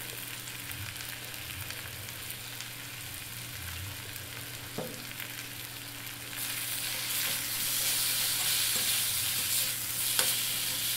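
Raw banana pieces sizzling in a little oil in a kadai while being stirred and sautéed. The sizzle gets louder about six seconds in, with a couple of short clicks along the way.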